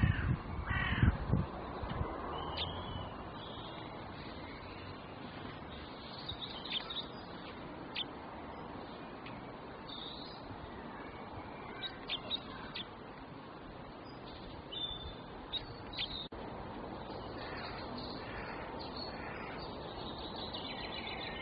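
Birds calling now and then over a steady background hiss, with a few loud low thumps in the first second or so.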